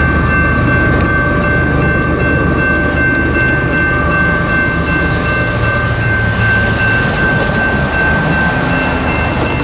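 Diesel freight locomotive's multi-chime air horn held in one long steady blast over the low rumble of the locomotives and passing train.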